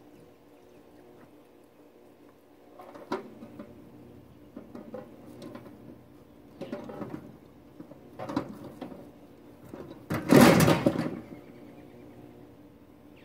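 Scattered knocks, scrapes and rattles as an overturned riding lawn mower is handled and heaved upright, ending in one much louder heavy clatter about ten seconds in as it drops back onto its wheels.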